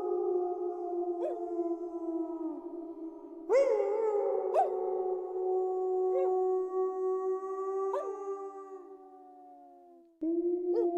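Wolves howling in chorus: several long, overlapping howls at different pitches, each sliding slowly downward. A new howl comes in about three and a half seconds in, the chorus fades out near the end, and another howl starts just before the end.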